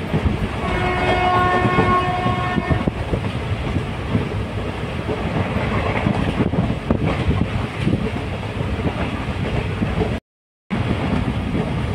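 A train running on the rails with a steady rumble, its horn sounding one steady blast of about two seconds near the start. The sound cuts out for about half a second near the end.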